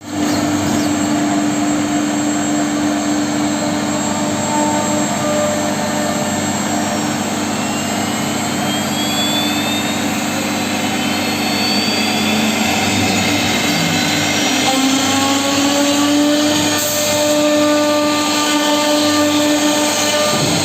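CNC router running as it carves wood: a steady spindle hum and the noise of the cut, with thinner tones that slide up in pitch now and then.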